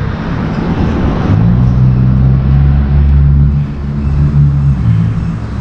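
A motor vehicle's engine running close by: a low steady hum that shifts pitch slightly a couple of times.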